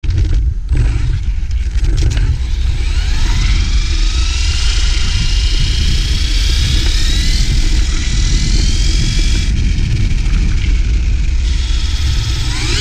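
Electric drivetrain of a Losi Baja Rey RC truck whining, rising in pitch as the truck speeds up, easing, then rising again near the end. Under it, a heavy rumble of wind on the onboard camera's microphone and tyres on paving.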